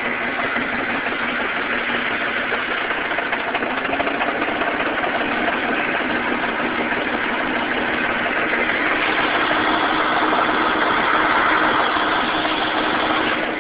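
1998 Ford Mustang's 3.8-litre V6 engine running with a misfire. The sound is steady and gets a little louder about nine seconds in.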